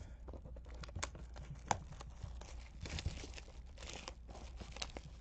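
Plastic shrink-wrap being torn and crinkled off a sealed trading-card box, a run of crackles and snaps.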